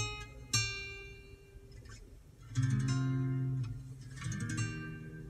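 Acoustic guitar music, plucked and strummed chords ringing and fading, played back through a Mitsubishi Pajero Sport's upgraded car audio system with Infinity front speakers and a 12-inch Critical Mass subwoofer. A louder strum with a deep bass note comes in about two and a half seconds in.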